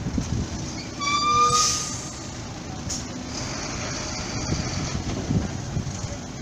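Lorry's diesel engine running with a steady low rumble as the loaded flatbed truck manoeuvres on the quay. About a second in, a short, loud, high tone sounds for under a second.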